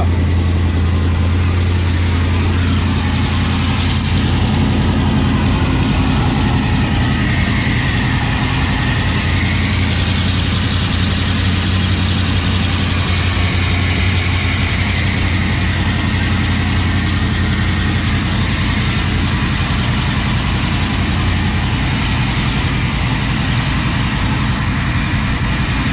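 Boat's inboard gasoline marine engine, on a newly fitted Rochester carburetor, running steadily at idle but running rough.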